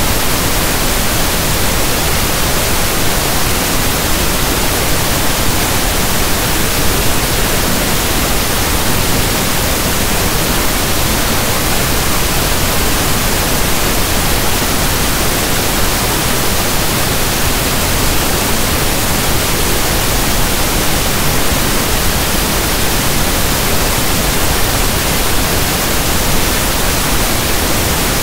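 Steady synthesized pink noise: an even, soft static hiss like a radio tuned between stations.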